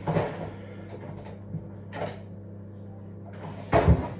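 A few knocks and thuds over a steady low hum: one sharp knock at the start, a smaller one about two seconds in, and a louder double thud near the end.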